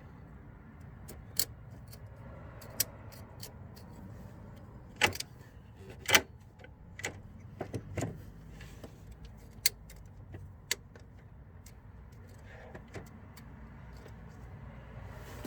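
Scattered sharp metallic clicks and clinks of tools and parts being handled while working on the gearbox selector linkage, the loudest two about five and six seconds in.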